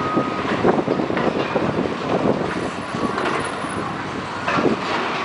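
Demolition excavators tearing apart a concrete-and-steel stadium structure: a continuous clatter of cracking and falling debris, with louder crashes about a second in and near the end, and a brief squeal at the start.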